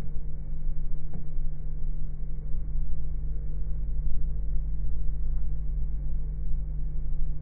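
Airliner cabin noise while taxiing: a steady low rumble of the jet engines at low power, heard through the fuselage, with a steady hum underneath.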